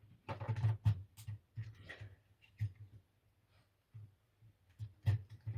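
A 2.5-inch hard drive being worked into a laptop's drive bay: irregular plastic and metal clicks and knocks with dull thuds, bunched in the first second and again near the end.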